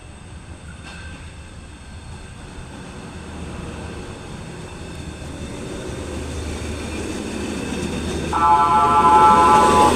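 A KAI lori, a small rail vehicle, running along the track, its rumble growing louder as it approaches. About eight seconds in it sounds its horn, a steady chord of several tones held to the end.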